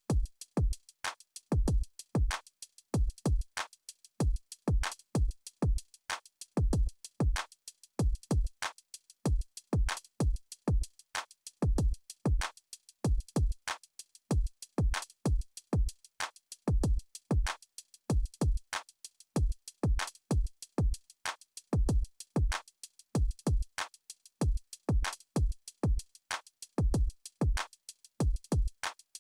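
Electronic backing music made almost entirely of a drum machine beat: deep kick drums that drop quickly in pitch, with crisp hi-hat ticks above.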